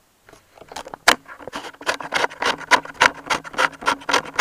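Handling noise from the camera or its microphone being picked up and moved: a run of quick knocks, scrapes and rustles, several a second, starting about a second in, over a faint low hum.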